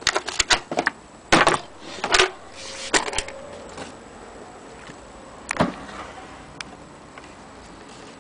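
Metal catches on a portable gramophone's case being worked by hand, giving a run of sharp clicks and clacks, then a single knock about five and a half seconds in as the case is opened.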